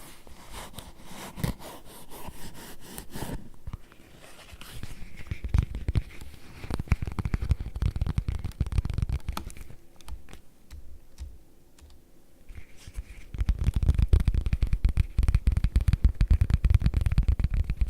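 Rapid tapping on leather close to the microphone, a quick, dense run of soft taps. About three-quarters of the way in the taps become heavier and deeper.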